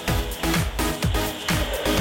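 Background music with a steady kick-drum beat, about two beats a second, over sustained synth-like layers.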